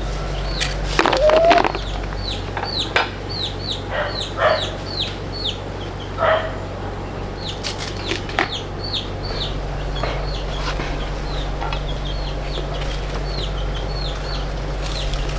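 Chickens calling: many short, high, falling peeps repeated several times a second, mixed with a few lower clucks and scattered knocks, over a steady low hum.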